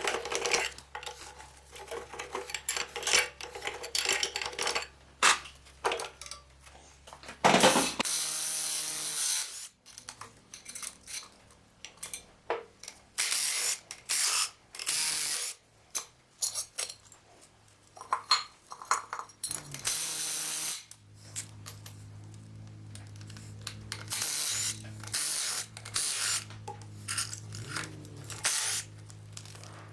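Engine-teardown workshop sounds: repeated metal clinks and scrapes of hand tools and parts, and a burst of a power tool about eight seconds in. A steady low machine hum runs underneath for much of the time.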